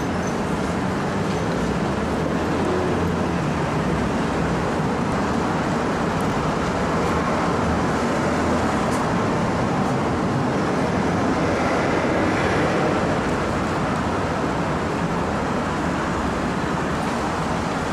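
Steady street traffic noise, an even wash of sound with no single vehicle standing out.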